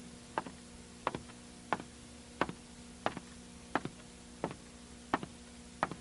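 Steady, evenly spaced ticking, about three ticks every two seconds, each a quick double click, over a faint low hum.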